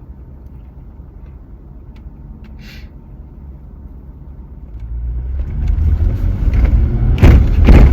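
Car cabin road noise: a low steady rumble that grows much louder about five seconds in as the car rolls over rough road, with two sharp thumps near the end as it hits bumps.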